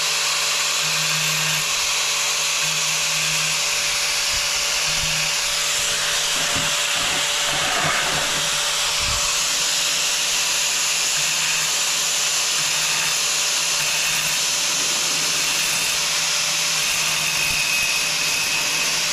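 Angle grinder running steadily as it grinds into the face of a hard tile, cutting out a round hole.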